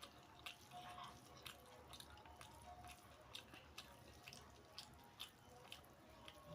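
Faint wet chewing and mouth clicks of someone eating beef biryani close to the microphone, in small irregular ticks a few times a second.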